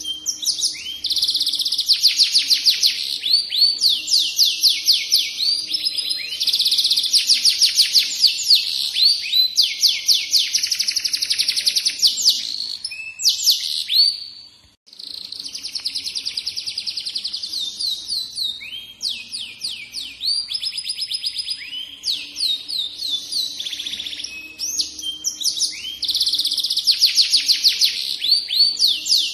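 Yellow canary singing a long, continuous song of fast trills, rolls of rapidly repeated notes one after another, with one brief break about halfway through.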